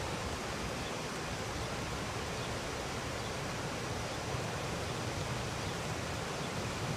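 Floodwater rushing along the street, a steady even rush of water.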